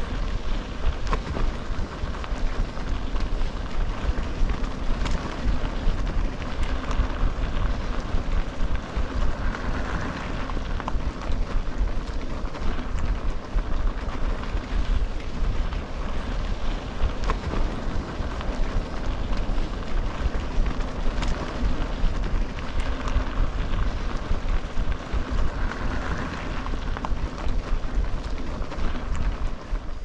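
Wind buffeting the microphone of a handheld camera on a moving bicycle, a heavy rumbling rush, with the crunch and rattle of tyres rolling over a gravel trail.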